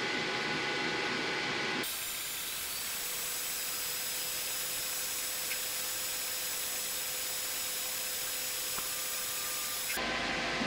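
xTool S1 laser engraver running an engrave pass, a steady machine hum with thin whining tones. About two seconds in, the sound cuts abruptly to an even, high hiss with faint steady whines: the same run sped up 25 times. It cuts back to the normal machine sound near the end.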